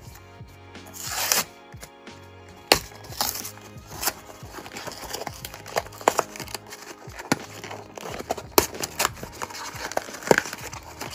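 Small cardboard blind box being pried and ripped open by hand: a string of sharp cracks and snaps of card, with a longer tearing sound about a second in. Soft background music plays underneath.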